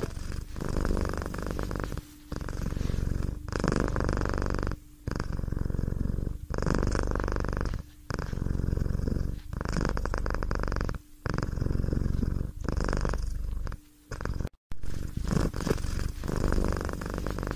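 Cat purring, in even pulses that break briefly about every second and a half with its breathing.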